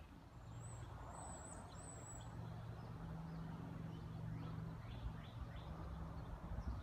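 Faint outdoor ambience with scattered short bird chirps and a thin high whistle in the first two seconds, over a steady low hum that swells for a few seconds in the middle.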